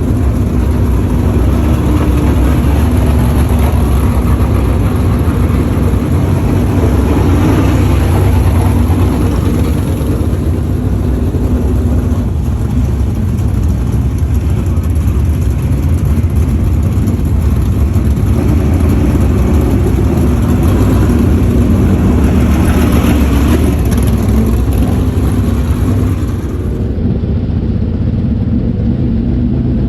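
Dirt-track modified race cars' engines running loud and continuous, swelling twice as they go by.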